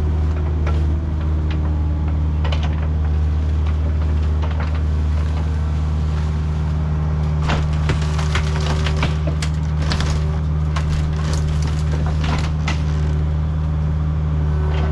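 Heavy diesel machine engine running steadily while wooden boards are crushed, cracking and splintering in many sharp snaps in the second half. This is a wooden storage building being torn down.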